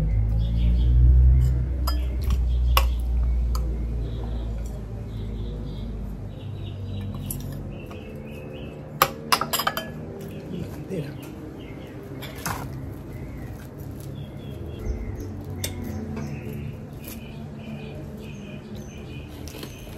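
Spoon and dishes clinking during a meal, with a few sharp clinks, the strongest a quick cluster about nine seconds in and another near twelve seconds. Birds chirp repeatedly in the background, and a low hum fills the first few seconds.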